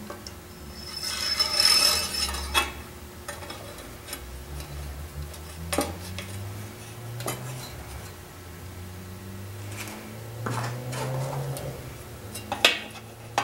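Small metal parts of a Coleman stove's steel fuel tank and pump fittings clicking and clinking as they are handled and fitted together, a few separate sharp knocks. A brief hiss a second or so in is the loudest sound.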